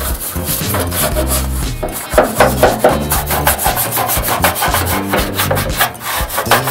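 Plastic snow scraper pushed in quick repeated strokes across the wet, soapy steel of an old truck hood, scraping off grime, with background music under it.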